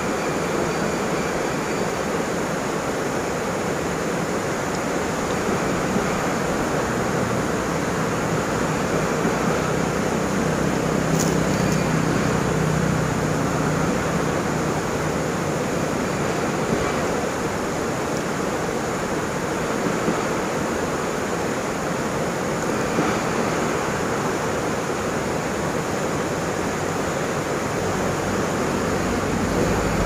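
Waterfall rushing: a steady, even roar of falling water, swelling slightly about halfway through.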